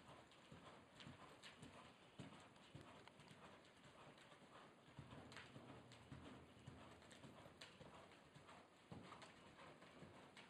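Faint hoofbeats of a horse loping on soft dirt arena footing: a run of dull, uneven thuds.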